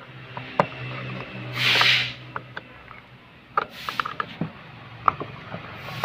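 Cross-head screwdriver turning out a screw in the plastic door-pull cup of a Hyundai Santro's inner door trim: scattered small clicks and scrapes of metal on plastic. A short hiss comes about two seconds in, and a fainter one near four seconds.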